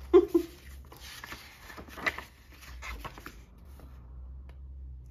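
Vintage paper greeting cards being handled: slid across a pile and opened, with soft rustles and scrapes of card on card and on the table. The handling dies away in the last second or so.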